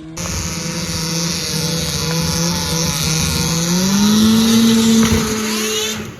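Snowmobile engine under throttle on a run-up, its drilled-out exhaust letting it run loud. The pitch holds steady, climbs about four seconds in as the sled speeds up, then falls away abruptly near the end.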